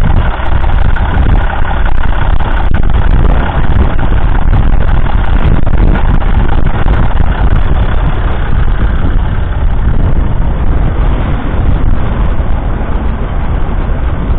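1971 Massey Ferguson 135's 2.5-litre three-cylinder diesel engine idling steadily, heard loud and close up.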